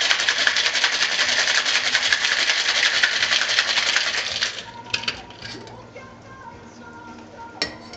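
Ice rattling hard and fast inside a Boston shaker of glass and metal tin as a cocktail is shaken vigorously. The rattle stops about four and a half seconds in, and a few sharp clinks follow as the shaker is opened for straining.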